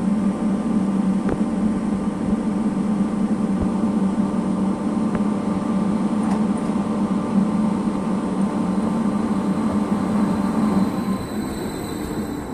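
Steady electric hum with a few whining tones from electric trains at a station, as a MÁV Stadler FLIRT electric multiple unit pulls in alongside the platform; a few faint clicks, and the hum eases near the end.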